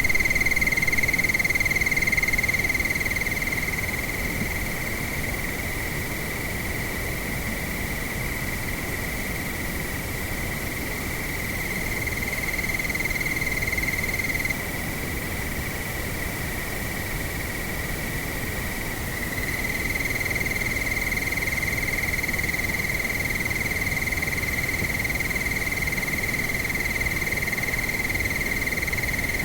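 Crickets trilling continuously in one steady high-pitched tone over a low rush of wind. About halfway through, the trill drops a little in pitch and thins for a few seconds, then comes back.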